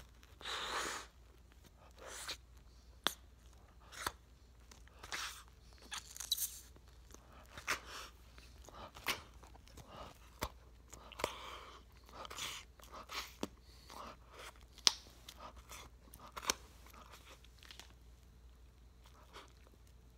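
A large wad of bubblegum chewed with the mouth open: irregular wet smacks and clicks about once a second, the loudest a sharp smack near the end, after a longer burst of noise right at the start.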